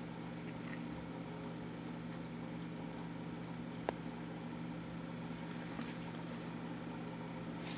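Steady low motor hum of aquarium equipment running, with one brief tick about four seconds in.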